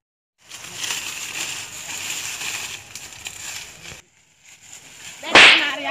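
Crackling rustle of dry leaves, twigs and branches as people push through leafy undergrowth; it cuts off abruptly. Near the end comes a short, loud shout.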